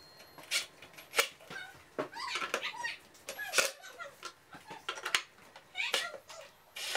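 Scattered clicks and knocks as a cordless drill-driver and a wooden drawer front are handled and lined up, with a few short squeaks. Right at the end the drill starts running, driving a screw to fix the drawer front.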